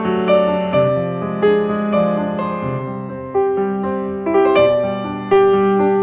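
Background music: a slow, gentle piano piece, single notes and chords struck every half second or so and left to fade.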